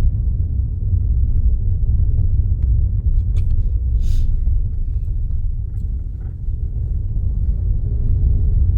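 Steady low engine and road rumble heard inside a moving car's cabin, with a few faint clicks and a brief hiss about four seconds in.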